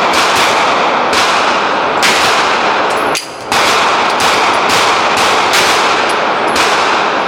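Gunshots fired in quick succession, one or two a second, loud and sharp, with a short break about three seconds in before the firing resumes.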